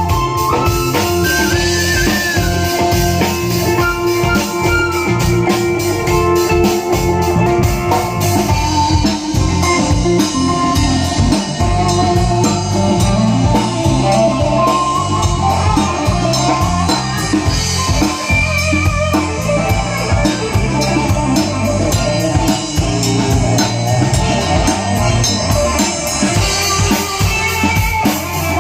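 A band playing loud music with a steady drum beat, heavy bass and a melodic lead line, during a sound check.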